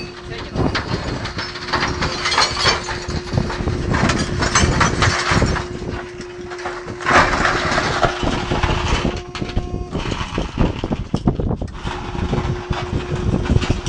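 Trash compactor running with a steady hum while its ram crushes a television, the casing and glass cracking and crunching throughout. The hum drops out for about two seconds near the end, then starts again.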